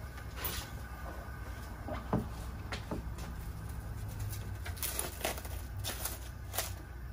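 Large pot of broth boiling on a gas stove: irregular bubbling pops over a steady low hum.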